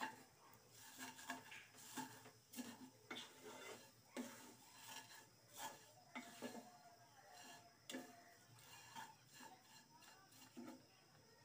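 Faint, irregular scraping and rustling of a wooden spatula stirring dry vermicelli, nuts and grated coconut frying in ghee in a pan, stopping shortly before the end.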